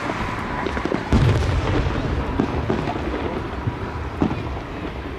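Fireworks going off: a string of bangs and booms, the loudest about a second in with a low rumble trailing after it.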